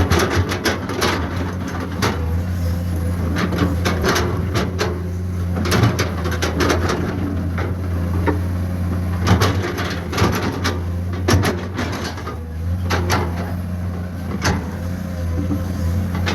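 Diesel engine of a Komatsu PC210 hydraulic excavator running steadily under load, with frequent irregular metallic knocks and clanks from the working machine.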